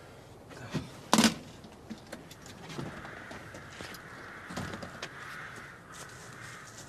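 A loud sharp clunk about a second in, with smaller knocks and rustles around it, from someone handling things inside a telephone box; after it a faint steady hiss runs on.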